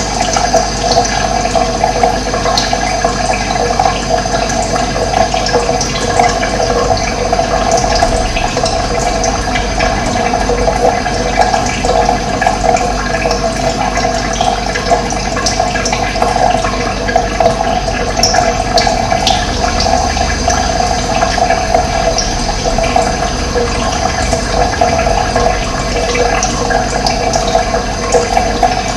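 Steady rush of running water, with a few brief high bird chirps over it.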